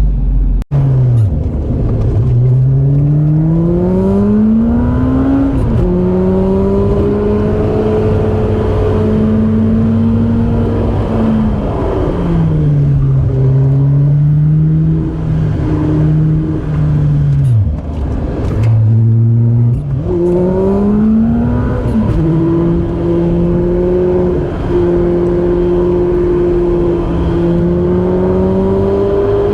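A Honda CR-V's swapped-in Acura TSX engine running under way, its pitch climbing as it pulls through the revs, then falling away at shifts or when the throttle eases, several times over. The sound cuts out briefly about half a second in.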